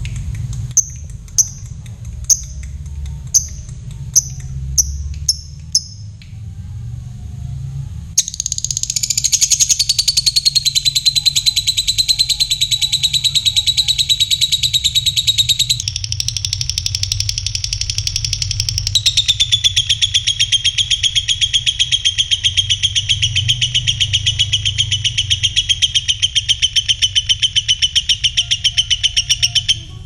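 Fischer's lovebird giving a row of sharp single chirps, about two a second. About eight seconds in it breaks into a long, rapid, chattering trill, the 'ngekek panjang' (long ngekek), which runs on with two brief breaks.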